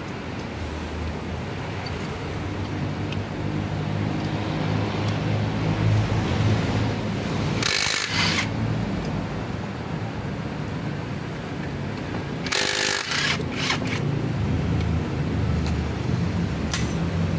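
Cordless impact wrench run in two short bursts, about five seconds apart, on bolts of an Isuzu 6WF1 truck engine. A steady low rumble runs underneath.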